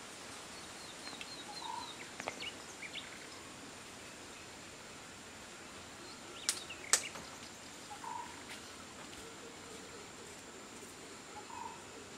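Outdoor rural ambience with birds calling: a quick run of high chirps about a second in, and a short call repeated a few times. Two sharp knocks about six and seven seconds in, the second the loudest.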